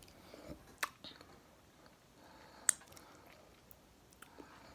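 Faint chewing and mouth sounds of someone eating chicken wings, broken by two sharp clicks, one about a second in and a louder one near the middle.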